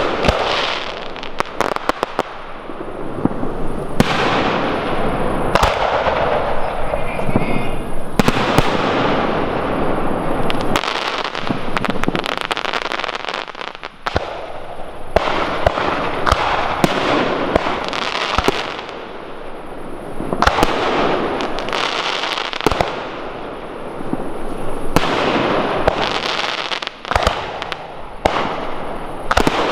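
Large professional fireworks display: many sharp bangs from bursting effects over a continuous crackling hiss, with a brief lull about halfway.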